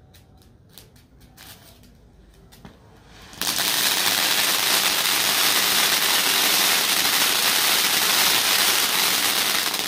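Sunshine Rockstar ground fountain firework (anar) catching about three and a half seconds in, then spraying sparks with a loud, steady, very loud crackling hiss.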